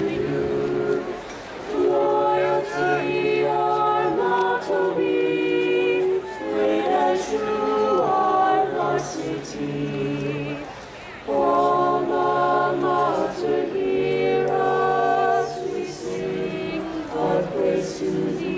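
Large crowd of graduates and alumni singing the school alma mater together in held notes, phrase by phrase, with brief breaks between lines about a second and a half in and again about eleven seconds in.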